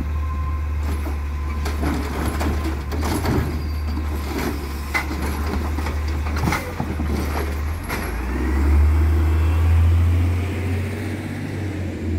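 Heil automated side-loader garbage truck running as its hydraulic arm tips a wheeled cart into the hopper and lowers it back to the curb, with scattered knocks and clanks from the cart and arm over a steady engine drone. The engine swells louder about two-thirds of the way through.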